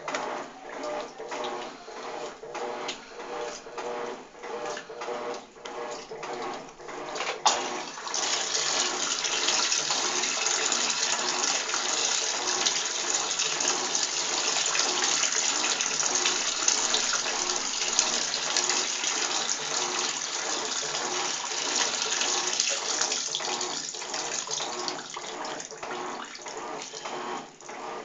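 Electrolux TOP6F top-loading washing machine agitating, its agitator churning the wash in a steady back-and-forth rhythm over the motor's hum. About seven seconds in a click is followed by a steady rush of water that runs alongside the churning for about fifteen seconds, then dies away as the rhythmic agitation comes back to the fore.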